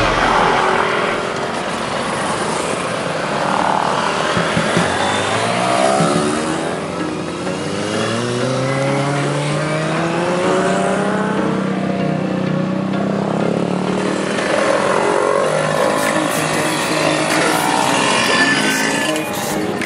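Motorcycle and scooter engines passing one after another, overlapping, their pitch rising and falling as each rider goes by, with one engine climbing in pitch and then holding steady about halfway through.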